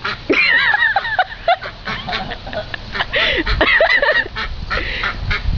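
Pet ducks quacking and chattering in a run of short, pitch-bending calls.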